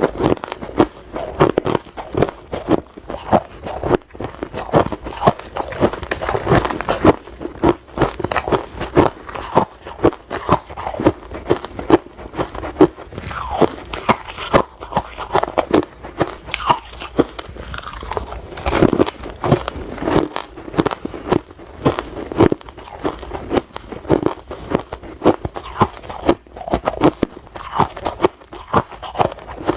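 Hard ice being bitten and chewed: many sharp crunches and cracks in quick, irregular succession.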